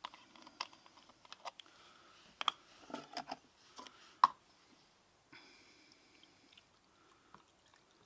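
Clicks and knocks from handling a plastic bottle and a small plastic tub, with one sharp knock about four seconds in. Then methylated spirits poured from the bottle into the plastic measuring tub for a little over a second.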